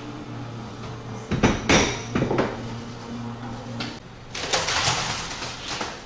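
Café work clatter: several sharp knocks and clinks of cups and espresso equipment, then a rushing noise lasting about a second, over a steady low machine hum.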